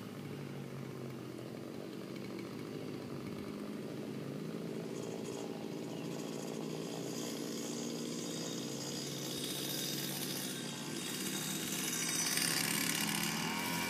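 Small petrol engine running steadily, growing louder and brighter near the end.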